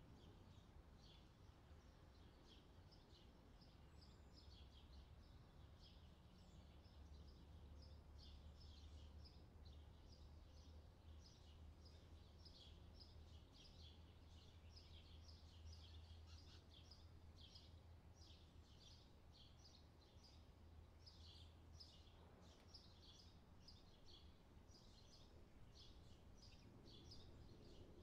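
Faint outdoor summer ambience: many small birds chirping over and over, over a low steady background rumble.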